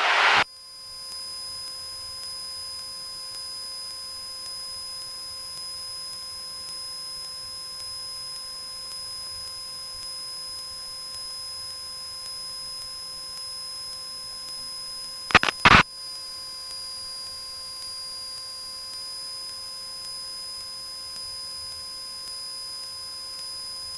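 Steady electrical hum and hiss of a Cessna 172's intercom and radio audio feed, with a few fixed whining tones. About fifteen seconds in there is a brief, loud double click, like a radio transmission keying on and off.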